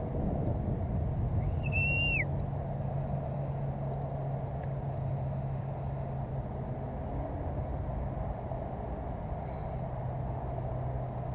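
A single short, clear whistled bird call about one and a half seconds in: it rises, holds one pitch, then drops away. It sits over a steady low background rumble.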